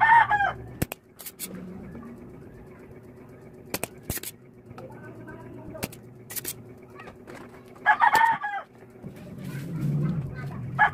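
Spring-loaded desoldering pump (solder sucker) snapping several times as its plunger is fired, clearing solder from an IC's pins. Three short bird calls are the loudest sounds: one at the start, one about eight seconds in and one at the end.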